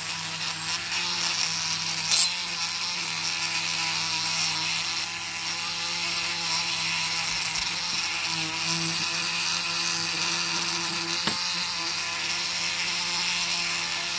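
Rotary tool on a flexible shaft running steadily, its small wire wheel scrubbing the old paint off a diecast metal toy truck cab. There is a brief knock about two seconds in and a sharp click near eleven seconds.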